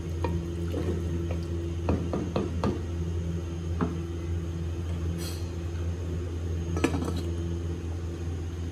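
A wooden spoon stirring and knocking against a clay handi of daal, with liquid splashing in the pot, then a stainless-steel lid clacking down onto the clay pot near the end, which is the loudest knock. A steady low hum runs underneath.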